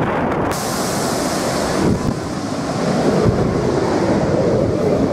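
Jet airliner engines at takeoff thrust, heard from just behind the aircraft: a loud, steady rushing blast with wind buffeting the microphone. The sound shifts abruptly a couple of times.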